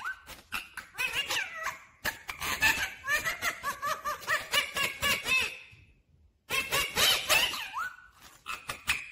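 Rose-ringed parakeet chattering in quick, squeaky rising-and-falling notes, mixed with sharp clicks as its beak crunches corn kernels; it falls silent for a moment about six seconds in, then chatters again.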